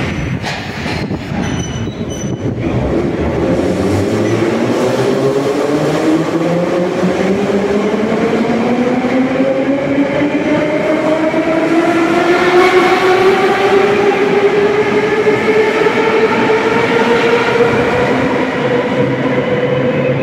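Moscow Metro train pulling out of the station: a few knocks at the start, then its traction motors whine, rising steadily in pitch as it accelerates, over the rumble of the wheels.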